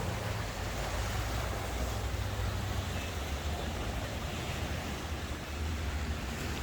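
Steady rushing of the Yarra River's flowing water, an even noise with a low rumble underneath.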